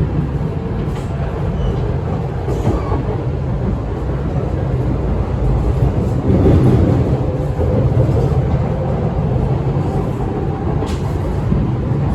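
Interior running sound of an E6-series Shinkansen car: a steady rumble of wheels and running gear, with a faint steady tone under it. A few brief knocks come through, about a second in, near three seconds and near the end.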